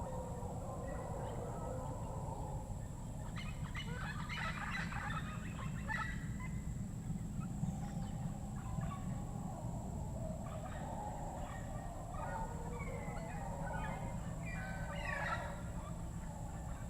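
Panamanian rainforest birds calling: a continuous warbling chorus with two louder bursts of fast, gobbling chatter, one a few seconds in and another near the end, over a steady low rumble.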